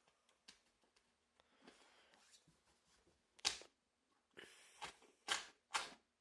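Razor blade slicing through a PhotoTex printed sticker stretched over a door's lock hole: several short, sharp scratchy cutting strokes, the loudest about three and a half seconds in, then three more in quick succession near the end.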